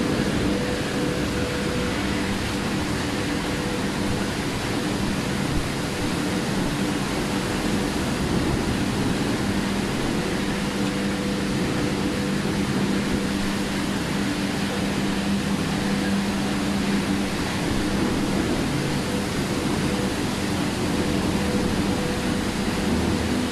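Plastic recycling plant machinery running: a steady rushing noise with a constant low hum of a few held tones.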